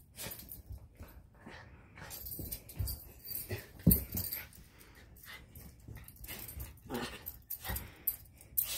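Small dog making play noises while pawing and mouthing a telescoping magnet pickup tool on carpet, with a sharp knock about four seconds in.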